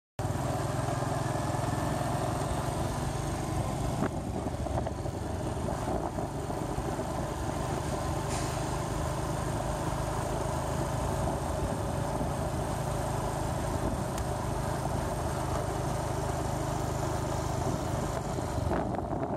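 A motor vehicle running at a steady pace: a constant low engine hum mixed with road noise.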